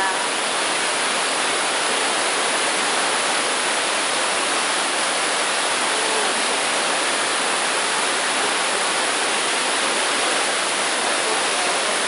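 White water of a waterfall cascade rushing down smooth rock slabs: a steady, loud rushing hiss.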